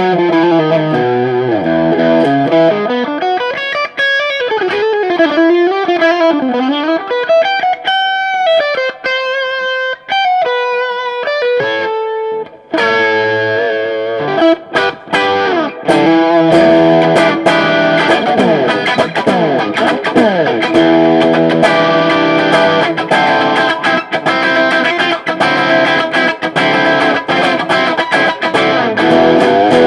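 Electric guitar played through an Ibanez TS9 Tube Screamer overdrive pedal. A single-note lead line with bends and slides gives way, about thirteen seconds in, to fast-picked overdriven chords.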